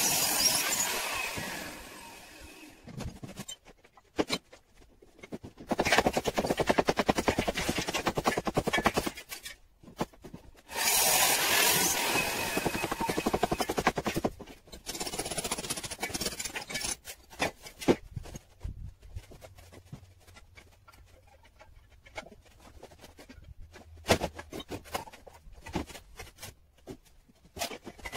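Power tool cutting out brickwork in a series of bursts, each lasting from one to a few seconds, one of them with a fast, even hammering; short sharp knocks come between the bursts.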